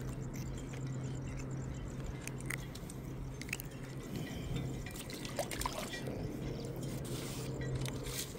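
Water lapping and dribbling at a rocky shoreline, with small clicks from handling and a steady low hum underneath; a short rush of splashing noise near the end.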